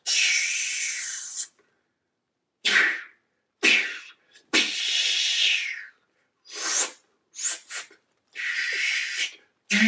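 Breathy hissing and sniffing noises made by mouth, a string of about eight bursts with silence between: three long hisses of a second or more, the rest short sniffs.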